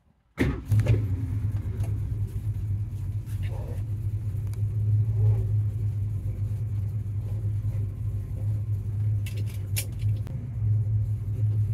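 1969 Ford Mustang engine running at a steady idle, heard from inside the cabin as an even low rumble, with a couple of light clicks about nine seconds in.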